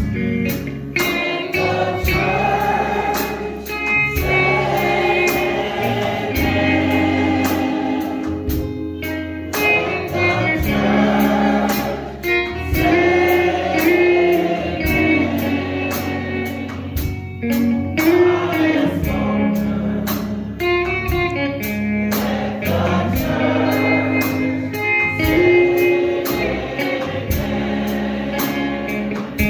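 Gospel music: a choir singing over instrumental accompaniment with a steady bass line.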